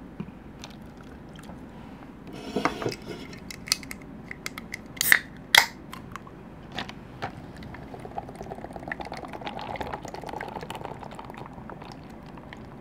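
An aluminium can of Lotte Milkis, a carbonated milk soda, is cracked open with two sharp clicks about five seconds in. Scattered clicks and taps of cans and plastic cups come before and after. From about eight seconds the soda pours and fizzes into a plastic cup.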